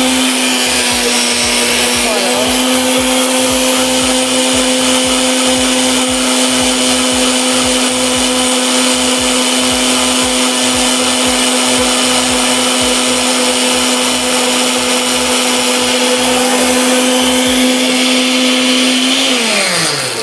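Countertop blender motor running steadily, emulsifying a citrus vinaigrette of lemon juice, orange juice and apple cider vinegar as olive oil is drizzled in through the lid. Near the end the motor switches off and winds down with a falling pitch.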